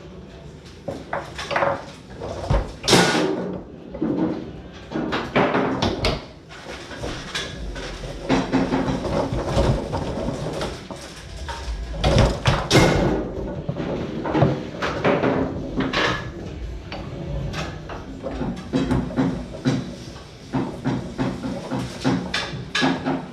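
Foosball being played hard on a Tornado table: the ball cracking off the plastic men and the table walls, and the rods sliding and knocking, in quick irregular bursts.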